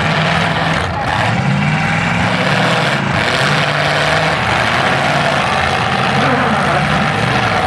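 Several demolition derby cars' engines running at once, their pitch rising and falling as the drivers rev and push.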